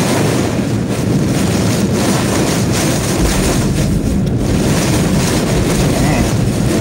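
Hurricane eyewall wind and heavy rain: a loud, steady rushing, with the wind buffeting the microphone.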